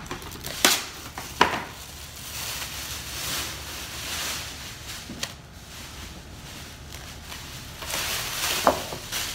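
Plastic cling wrap pulled off a Saran roll box, torn and stretched over a glass bowl: crinkling and rustling of the thin film, with a couple of sharp clicks near the start and another near the end.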